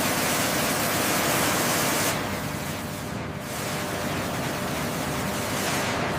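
Steady loud rushing noise with no tone in it, easing slightly about two seconds in.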